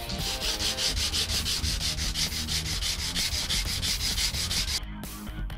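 A plastic strip is hand-sanded on a sheet of sandpaper laid flat, rubbed back and forth in quick, even strokes of about six a second. The strokes stop shortly before the end.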